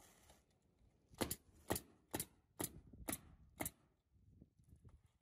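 Pneumatic roofing nailer firing six nails in quick succession into asphalt shingles, about two shots a second.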